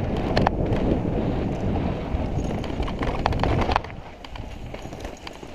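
Wind buffeting the microphone of a mountain bike's camera during a descent on a rocky dirt singletrack, with scattered clicks and rattles from the bike over rocks. The wind noise drops off suddenly a little under four seconds in.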